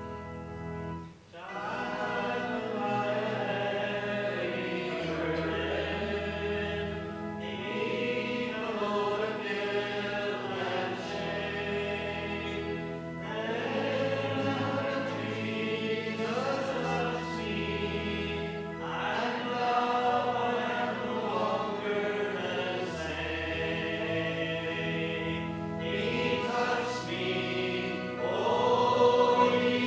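Church congregation singing a closing hymn together over sustained instrumental accompaniment, the singing coming in about a second in after a short pause.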